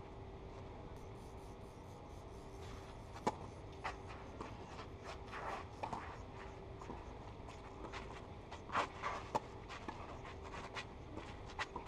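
Tennis rally on a clay court: rackets striking the ball and the ball bouncing give a string of sharp pops at irregular spacing, the loudest near a third and near three quarters of the way in, with shoes scuffing and sliding on the clay.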